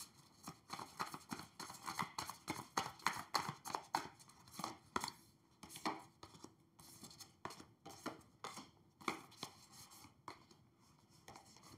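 Tarot cards being shuffled by hand and dealt onto a tabletop: a run of short, soft card snaps and slaps, several a second, thinning out near the end.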